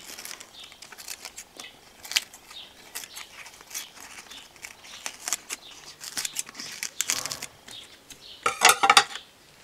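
Scissors snipping along the edge of fresh, crisp milk thistle leaves to cut off the spines, in a run of short irregular snips with the leaves crinkling and rustling. A louder burst of crinkling and snipping comes near the end.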